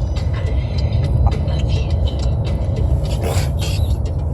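Steady low rumble of a moving vehicle heard from inside the cabin, with scattered small clicks and a brief hissing burst about three seconds in.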